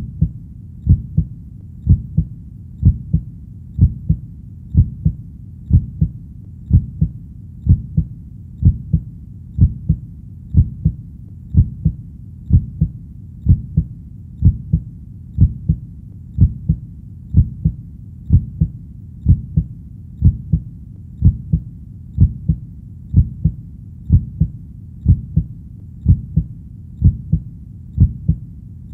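Heartbeat: low, soft double thuds (lub-dub) repeating steadily at about one beat a second.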